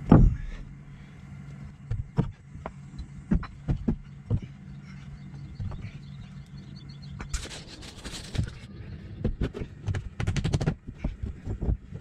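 Digging in loose soil by hand with a small hand tool: scattered thumps and scrapes, a heavy thump at the very start, a longer scraping rush about seven seconds in and a quick run of taps around ten seconds. A steady low hum sits underneath until about seven seconds in.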